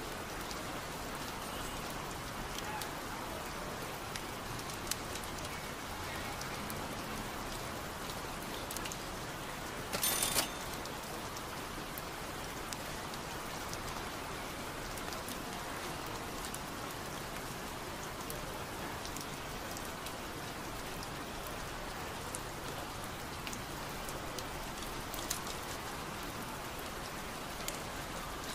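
Steady rain falling, with scattered sharp drop ticks and one brief louder burst of noise about ten seconds in.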